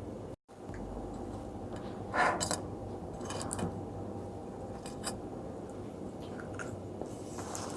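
Close-miked jelly-eating ASMR: scattered short clicks, crinkles and squishes of jelly and its packaging being handled and eaten, the loudest about two seconds in, over a steady low hum.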